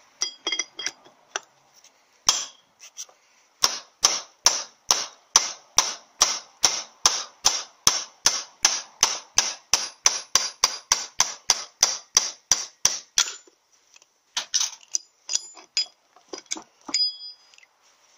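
Hammer striking a bush driver to knock the old bushing out of a cast iron Powerglide's rear-band drum. A few light taps come first, then a steady run of sharp metal-on-metal blows about three a second, then a few more spaced blows near the end, some with a short metallic ring.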